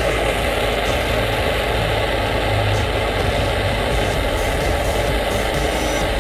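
Handheld gas torch on a canister burning with a steady hiss as its flame heats the quartz nail of a dab rig.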